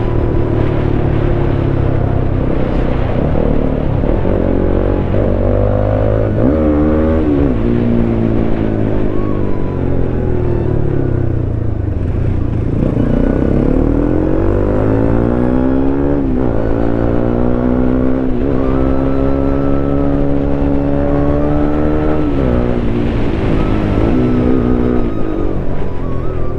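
Motorcycle engine under way, its pitch climbing over a few seconds and dropping sharply several times as the rider accelerates and shifts gears, over a steady low rumble of riding.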